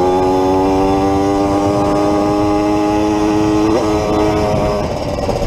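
Yamaha DT180's single-cylinder two-stroke engine running under load on the move, its note rising slowly as the bike gathers speed. There is a short blip in pitch about four seconds in, and the note eases off slightly near the end, over low wind rumble on the microphone.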